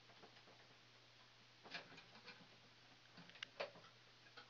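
Faint handling noise of a screwdriver and thermostat wires: a few small, scattered clicks and scrapes, the sharpest about three and a half seconds in, over a quiet room.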